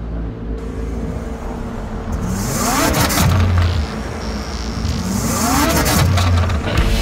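Sound effects: two swelling whooshes about three seconds apart, each rising then falling in pitch, over a low steady rumble.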